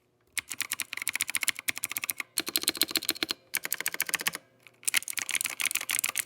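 Fast typing on a Zifriend AG98 mechanical keyboard with clicky blue switches: a dense run of sharp key clicks, broken by two brief pauses and a slightly longer one near the end.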